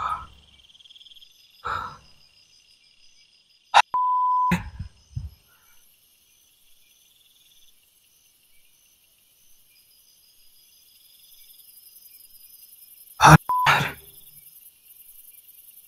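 Two electronic beeps at one steady mid pitch, a longer one of under a second a few seconds in and a brief one near the end, each starting and ending with a sharp click. Crickets chirp faintly throughout.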